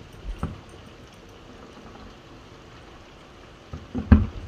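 Distant aerial firework shells bursting: a pair of booms just after the start, then a louder cluster of booms about four seconds in. Under them, a steady hiss of falling rain.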